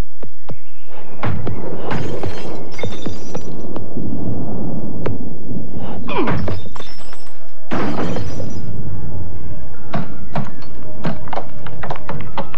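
Film soundtrack of repeated thuds and crashes, with things breaking, over music; the last few seconds hold many sharp, separate knocks.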